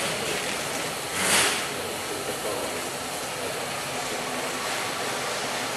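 Cobra III rotary-arm stretch wrapping machine running as its arm circles the load: a steady mechanical noise, with a short loud hiss about a second in.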